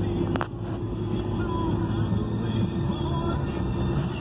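Steady road and engine rumble heard from inside a moving vehicle's cabin, with a steady hum, and a brief click about half a second in.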